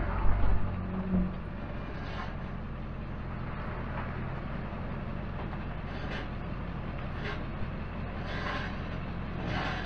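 Ford F-350 diesel pickup's engine running steadily as the truck creeps along towing a loaded trailer, with a few knocks in the first second and several brief scraping noises later on.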